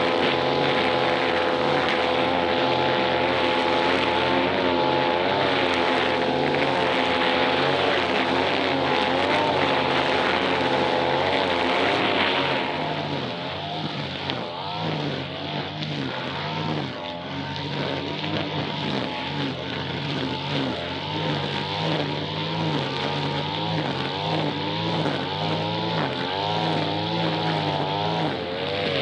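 Small brush cutter engine running at speed, its pitch wavering. About twelve seconds in it drops a little in level and the pitch rises and falls more.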